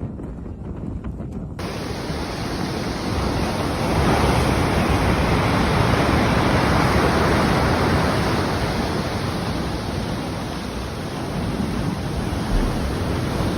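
Loud, steady rushing noise with no distinct events, like storm wind or surf. It grows louder over the first few seconds and changes abruptly about a second and a half in.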